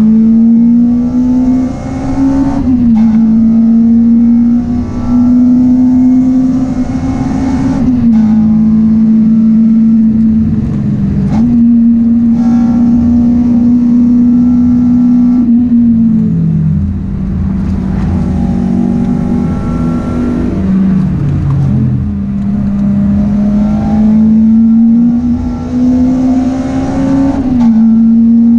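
Honda Integra DC5 Type R's four-cylinder engine, with aftermarket intake and full exhaust system, heard from inside the cabin while driven hard on track. It pulls to high revs, its pitch climbing steadily and dropping sharply several times as the gears change.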